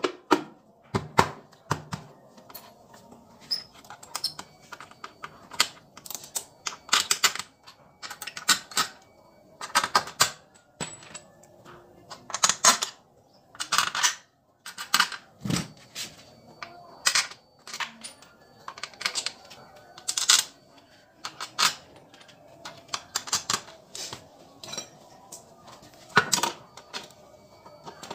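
Irregular sharp clicks, taps and knocks, in short clusters every second or so, of hand tools and metal parts being handled on an automatic scooter's CVT cover.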